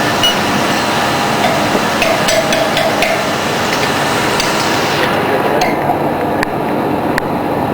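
Hand tools knocking and clinking on steel parts of a pellet mill during die disassembly, a few sharp strikes in quick succession, then single knocks spaced out, over steady loud factory machinery noise. A high hiss in the background cuts off about five seconds in.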